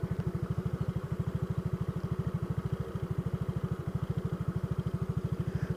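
Motorcycle engine idling steadily, with an even beat of about a dozen pulses a second.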